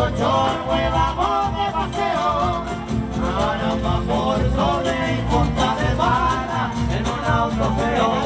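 Latin dance music played by a band: a singing voice over guitar and a steady beat.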